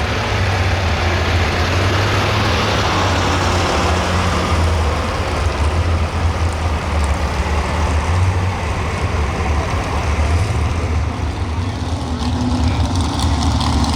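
Pro stock 4x4 pulling truck's engine running loud and hard, with its higher-pitched noise easing off about ten seconds in.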